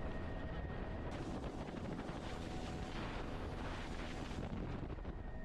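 Helicopter in flight with its doors off: a steady rotor and engine rumble with a thin turbine whine, and wind buffeting the microphone as a rough rushing hiss from about a second in until near the end.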